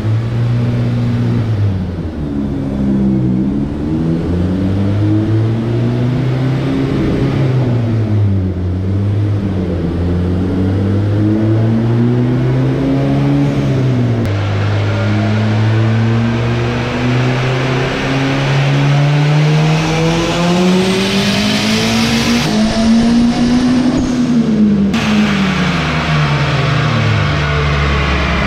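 Turbocharged Honda K20A3 four-cylinder making a full-throttle dyno pull on about 14 psi of boost, with its electronic exhaust dump closed and the intake air filter on. The revs rise and fall several times, then wind up in one long rising run to over 7,000 rpm before dropping away near the end.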